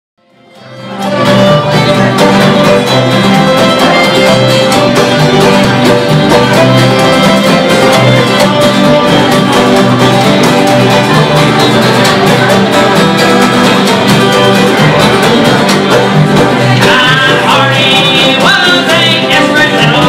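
Old-time string band playing live: fiddle over strummed acoustic guitar, fading in over the first second or so.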